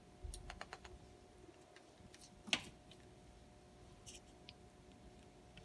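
Faint clicks and clacks of green aracaris' bills working a piece of banana: a quick run of small clicks early, a single sharper click about two and a half seconds in, and a couple of faint ticks later.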